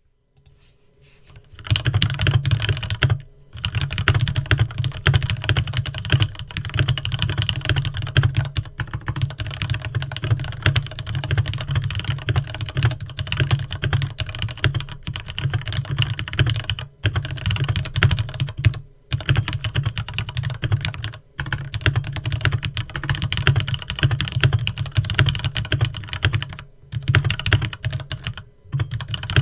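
Fast, continuous typing on a Leopold FC660M 65% mechanical keyboard with Cherry MX Red linear switches, a dense run of keystroke clacks. It starts about a second and a half in and breaks off for a moment a few times.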